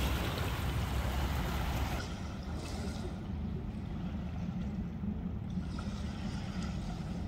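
Steady outdoor riverside background noise with no distinct event, louder and hissier for the first two seconds and then softer, with a steady low rumble underneath.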